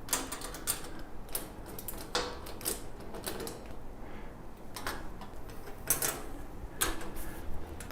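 Irregular metallic clicks and taps of an Allen key and a wrench working the Allen screws and nuts on a compost tumbler's handle as they are tightened.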